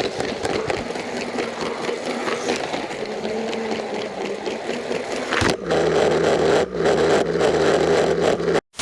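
LEGO train running on track: a small electric motor whirring with rapid clicking, louder with a low steady hum from about five and a half seconds in, then cut off abruptly near the end.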